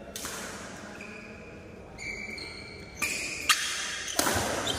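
Badminton play: sports shoes squeak briefly on the court floor several times. A racket strikes the shuttlecock sharply about three and a half seconds in, followed by a louder burst near the end as a player jumps to smash.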